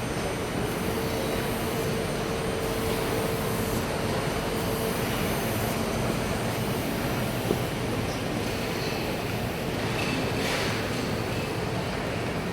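Steady machinery running noise with a faint steady hum, over the general din of a busy exhibition hall; a single small click about seven and a half seconds in.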